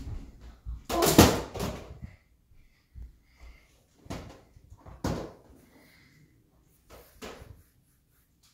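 Thumps and a scuffle from a child's jump landing, loudest about a second in, followed by several short sharp clacks of plastic magnetic building tiles being handled.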